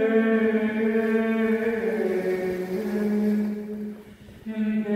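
A woman singing wordless chant: long, held notes that step down and back up in pitch. The sound fades into a short breath about four seconds in, and then the next note begins.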